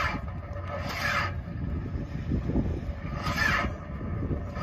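Light aircraft's electric starter cranking the engine slowly, the propeller turning over haltingly with rasping surges about a second in and again about three and a half seconds in, without catching. The starter is labouring on a small battery that isn't designed for the job.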